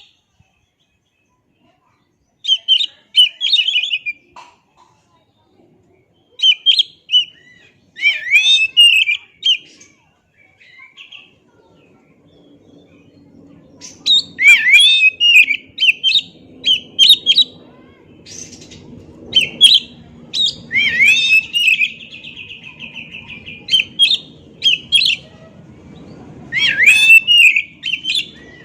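Oriental magpie-robin (kacer) singing in separate bursts of quick, varied whistled phrases with sharp rising and falling notes. About three-quarters of the way through, one phrase ends in a long drawn-out note. A faint low background noise comes in about halfway.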